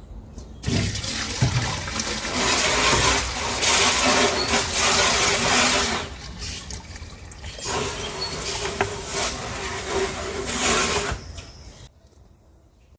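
Water poured from a bucket into a pot to be heated, a steady splashing pour in two long stretches with a short break about six seconds in.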